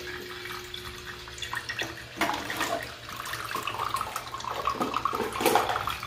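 Tabletop cascade fountain with its pump just switched on: water starts trickling and splashing from the spouts into the basins about two seconds in, growing busier toward the end.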